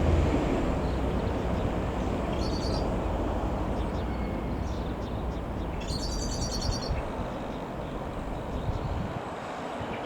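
Dassault Falcon 20's jet engines rumbling as the aircraft goes past, loudest at the start and fading away over the following seconds. A bird chirps twice over the rumble.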